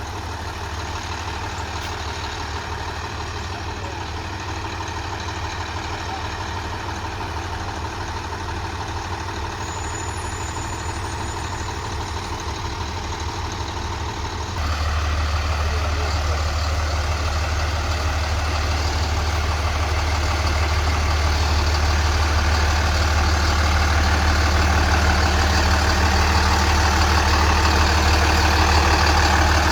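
Heavy vehicle engine running steadily. About halfway through the sound steps up suddenly, then grows gradually louder toward the end.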